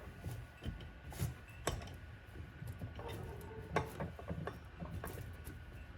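Small hand tools and tiny metal hardware being handled and set down on a workbench: scattered light clicks and clinks, the sharpest about a second and a half in and again near four seconds.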